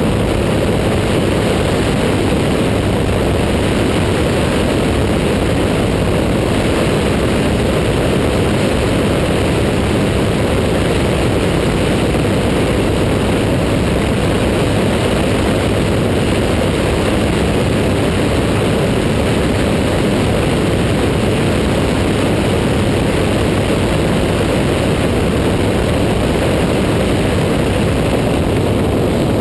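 Cabin noise of a Paradise light sport airplane in cruise flight: the propeller engine running steadily together with rushing air, heavy in the low end and unchanging.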